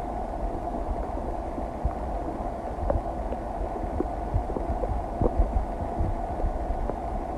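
A person's stomach and gut digesting a meal: a steady low hum dotted with many small, irregular pops and gurgles.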